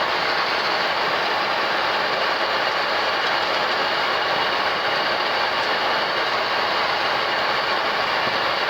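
Steady flight-deck noise of a Boeing 737 MAX taxiing: an even hiss and rumble that holds unchanged, with no distinct knocks or changes.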